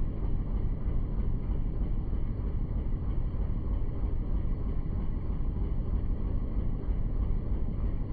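Steady low rumble of a boat under way on a river.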